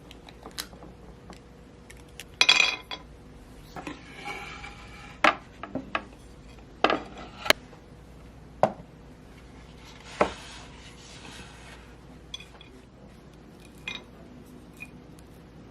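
Kitchen utensils against dishes: a dozen or so sharp clinks and knocks, a few ringing briefly, with two short stretches of scraping.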